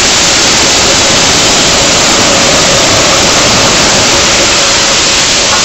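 Coal pouring steadily out of the bottom discharge doors of a BOBR hopper wagon into the track hopper below, a loud continuous rush, with a faint steady hum underneath.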